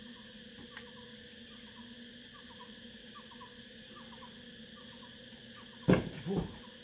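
Steady insect chorus, a buzzing drone with a short chirp repeating about twice a second. Near the end, a climber coming off the boulder lands with a loud thud, followed by a smaller thud.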